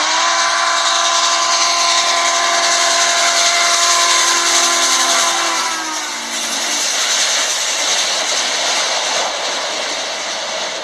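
Southern Pacific 4449, a GS-4 4-8-4 steam locomotive, sounding its whistle, a chord of several tones held for about six seconds that sags in pitch as it ends. A dense rushing noise of the passing train and its cars carries on after the whistle stops.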